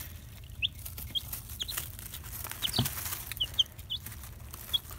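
Baby Rhode Island Red hybrid chicks, about five days old, peeping in short, high chirps scattered through, with a few light taps, one louder about three seconds in.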